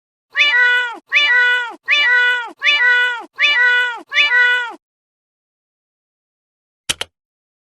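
A sampled cat meow, Thurston the cat's, repeated six times at one pitch as the Twitter ringtone, each meow rising at its start and then held. A short double click about 7 seconds in.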